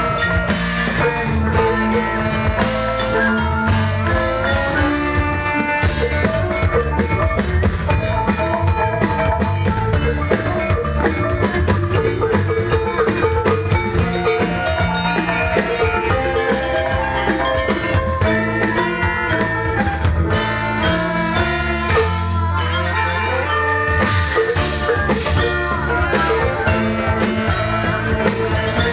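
Ensemble music with tuned mallet percussion playing melodic notes over drums, continuous and steady in loudness.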